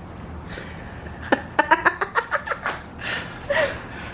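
A woman making a quick run of short, high-pitched vocal sounds, like a giggle or snicker, from a little over a second in until nearly three seconds, followed by a couple of softer breathy sounds.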